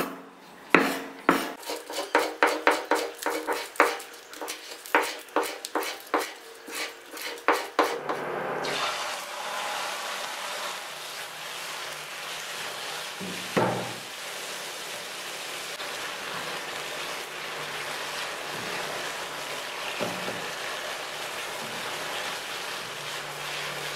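A knife chopping garlic on a wooden cutting board in quick, even strokes, about two to three a second. About eight seconds in, this gives way to chicken pieces sizzling in a hot granite-coated wok, with a spatula knocking against the pan now and then as they are stirred.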